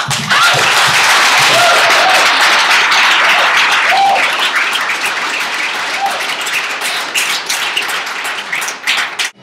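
Audience applauding loudly, with a few voices cheering above the clapping. The clapping thins to scattered claps near the end, then cuts off suddenly.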